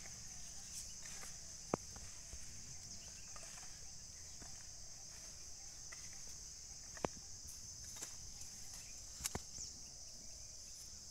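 Steady, high-pitched chorus of insects chirring in the field, with three sharp clicks about two, seven and nine seconds in.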